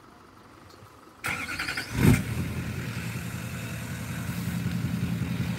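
Chevrolet Silverado's Duramax diesel engine cold-starting: a short crank about a second in, the engine catching with a loud burst near two seconds, then settling into a steady, rhythmic diesel idle.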